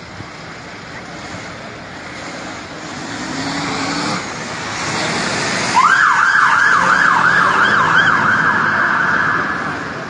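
Vehicle and traffic rumble building up, then a fire engine's siren switching on about six seconds in: a fast yelp sweeping rapidly up and down, about twice a second.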